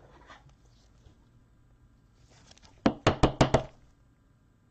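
A quick run of about six sharp knocks, all inside well under a second, about three seconds in.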